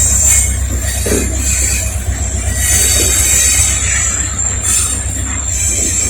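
Norfolk Southern freight train rolling off the connector track, its wheels squealing in a steady high-pitched whine over a deep, steady rumble of the train.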